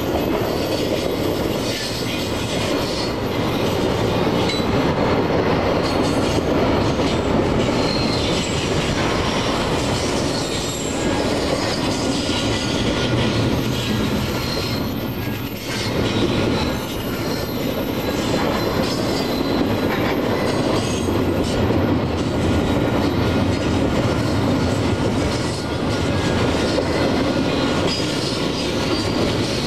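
Double-stack container freight train rolling past, its well cars and wheels running steadily over the rails, with a short dip in level about halfway.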